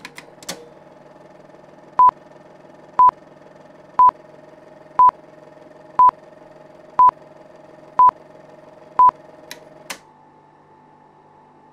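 Electronic beep, a single high pure tone, sounding eight times at one-second intervals over a steady electrical hum, with a few clicks near the start and just before the hum drops.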